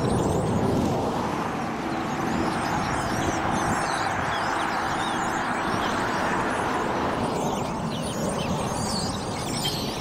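A huge flock of blackbirds chattering, many short squeaky calls overlapping. A rushing noise swells through the middle and eases near the end.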